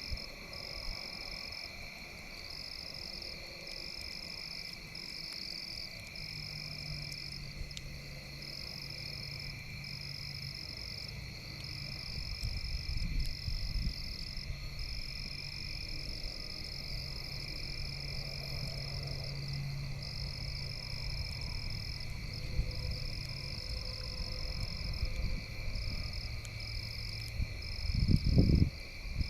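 Steady outdoor chorus of calling frogs, a high trill that keeps pulsing on and off, over a low background hum; a couple of louder low rumbles come near the end.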